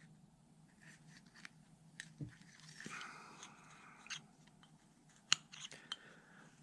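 Faint small clicks and scrapes of a hand tool working a seal into a groove in a hydraulic cylinder bore, over a low steady hum. There is a brief scraping just under halfway through and a sharper click a little past five seconds.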